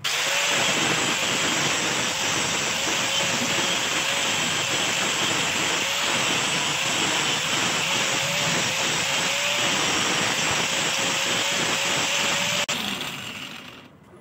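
Handheld angle grinder switched on with a sudden start, grinding a fresh weld and rust off a steel air pistol part: a steady hissing grind over a motor whine whose pitch wavers. Near the end it is switched off and spins down.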